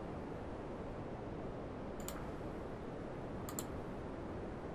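Computer mouse clicks: a single click about two seconds in, then a quick double click about a second and a half later, over a steady low hiss of room noise.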